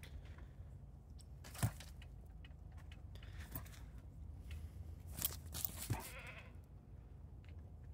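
Siberian husky making short whining cries at a horse through a chain-link gate. Sharp clicks of the metal gate and mesh being knocked come about one and a half seconds in (the loudest) and a few more around five to six seconds in, as the husky paws at it.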